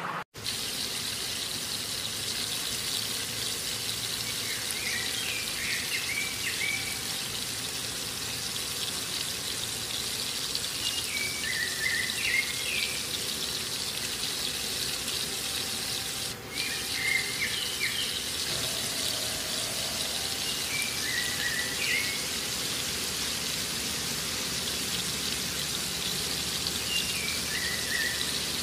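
Hot oil sizzling steadily as food fries, with a bird chirping briefly five times, about every five or six seconds.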